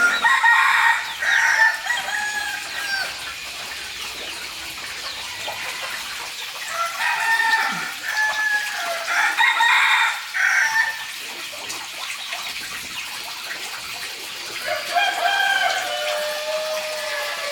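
Chickens calling: a rooster crowing in three bouts, near the start, in the middle and near the end, with clucking between.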